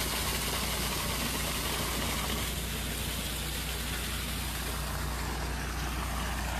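Gas engine of pressure-washing and water-recovery equipment running steadily under a continuous rushing hiss of water and air.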